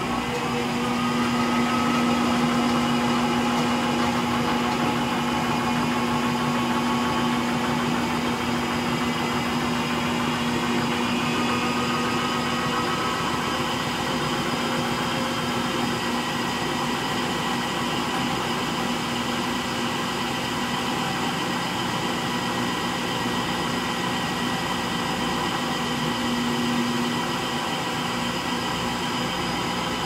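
Frigidaire Gallery front-load washer (model GLTF1670AS1) in its final spin: a loud, steady whine and rumble from the drum and motor, with a steady hum that cuts out near the end. The owner puts the noise down to bad motor bearings and likens it to a jet engine.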